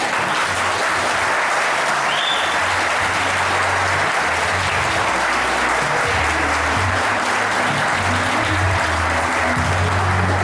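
Crowd of wedding guests applauding steadily, with background music playing underneath.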